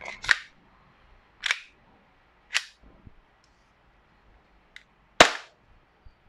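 Airsoft Glock 17 pistol firing four single shots, being test-fired over a chronograph. The first three come about a second apart; the fourth follows after a pause of some two and a half seconds.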